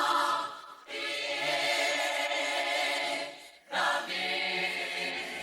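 A cappella gospel choir singing sustained chords without words, breaking off briefly twice and coming back in on a new chord.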